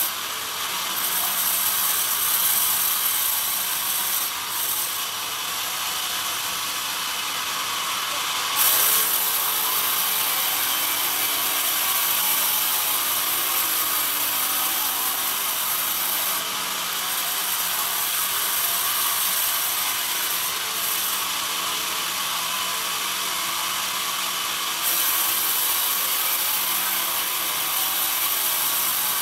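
Sawmill band saw running and cutting a pine cant into thin planks, a steady hiss and mechanical rattle of blade and carriage. The highest part of the hiss drops away twice for several seconds and returns.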